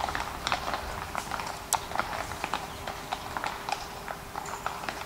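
Horses' iron-shod hooves clopping irregularly on cobblestones as the horses step about, with one sharper clop a little under two seconds in.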